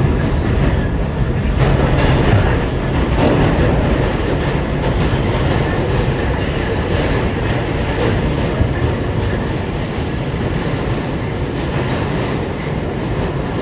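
An R211A subway train running at speed between stations, heard from inside the car: a loud, steady rumble of wheels on rail through the tunnel.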